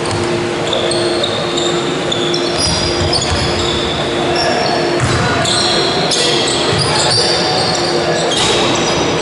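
Basketball game on a sports-hall court: trainers squeaking on the floor and the ball bouncing, echoing in the hall, over a steady low hum.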